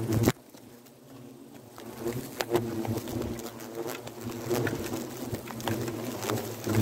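Hornets buzzing close in, a low droning hum that thickens a couple of seconds in as they attack, with a knock at the very start and scattered sharp ticks.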